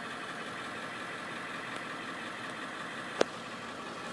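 Ford 7.3 Powerstroke V8 turbo diesel idling steadily, heard from inside the school bus cab. A single sharp click sounds about three seconds in.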